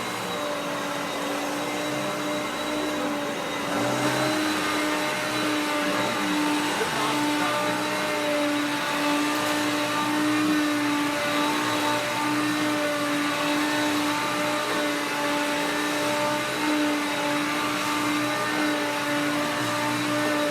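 Hoover Concept 2 Electronic upright vacuum cleaner running on high, a loud steady motor whine over rushing air, as it vacuums shredded paper off carpet. It gets a little louder about four seconds in.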